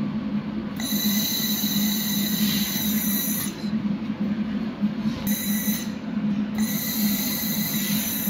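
Handheld fiber laser welding machine at work: a steady low hum runs throughout, and a high-pitched whine from the welding head comes on in three spells while it welds. The first spell starts about a second in and lasts nearly three seconds, the second is brief around five seconds, and the third starts at about six and a half seconds.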